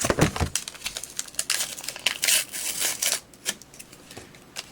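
Crinkling and tearing of a paper hot cocoa mix packet being handled and torn open, a run of crisp rustles and small clicks.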